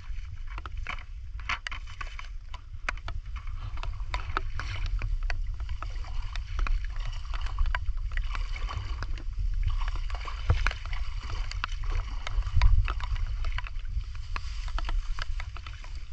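Shallow muddy creek water sloshing and splashing around a person wading in rubber boots, with many scattered small clicks and pops and a steady low rumble underneath.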